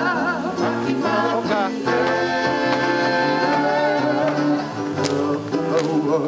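Music accompanying a Polynesian dance performance: a voice singing with wavering pitch over held notes and a steady bass line.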